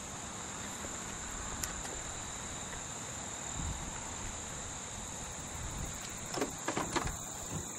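Crickets chirping steadily as a high, even background drone, with a few faint knocks near the end.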